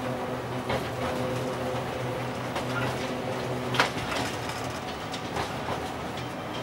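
A train rolling slowly over jointed track and points, heard from the driver's cab: a steady hum from the train's traction equipment with irregular clacks of the wheels over rail joints, the loudest a sharp clack just before the hum fades about four seconds in.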